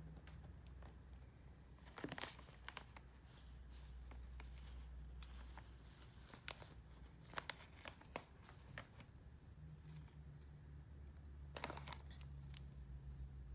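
Faint crinkling and crackling of a clear plastic bag as a doll is unwrapped and handled, in scattered bursts about two seconds in, several more in the middle, and one near the end, over a low steady hum.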